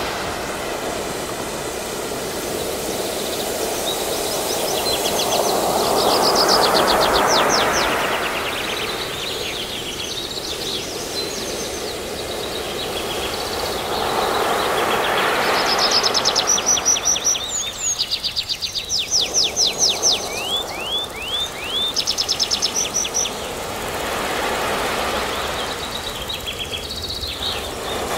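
Ocean surf washing in, swelling and fading slowly in long waves of hiss. Birds chirp over it in quick runs of high, falling notes, thickest through the second half.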